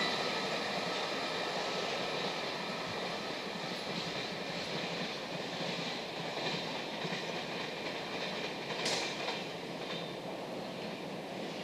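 Container freight train hauled by an EF210 electric locomotive rolling away along the track, the wagons' wheel-and-rail noise slowly fading. A short, sharp high sound comes about nine seconds in.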